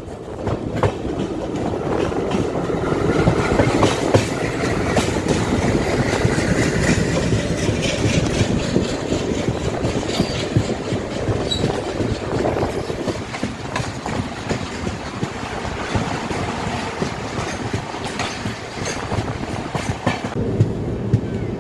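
LHB passenger coaches of an express train running at speed, the wheels clattering rapidly and irregularly on the rails over a steady rumble and rush of noise.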